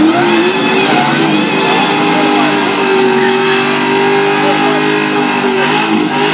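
A Camaro's Tick Performance iron-block 408 stroker V8 revving hard in a burnout, the rear tyres spinning and smoking. The revs climb early, hold at a steady high pitch through the middle, then waver and drop near the end.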